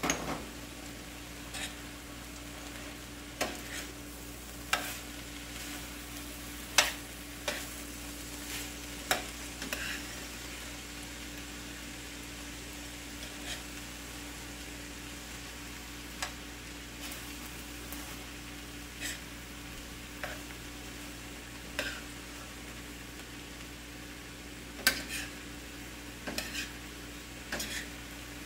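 Metal spoon stirring ground beef and vegetables in a stainless steel frying pan, with irregular clinks and scrapes against the pan over a steady sizzle.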